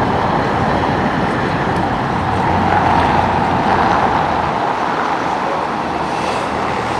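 Steady road traffic noise: cars passing on a busy street.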